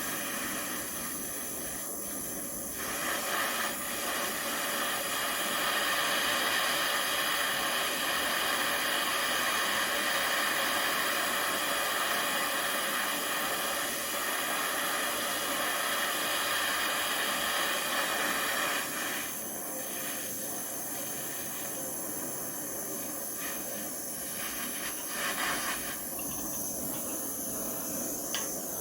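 Gas flame hissing steadily while heating a bent steering rod to straighten it. The hiss gets louder about three seconds in and drops back about two-thirds of the way through.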